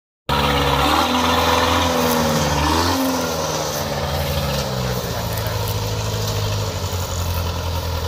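Kubota DC70 combine harvester's diesel engine running hard under load as the tracked machine works through soft, sinking mud. Its pitch wavers about two to three seconds in, then holds steady.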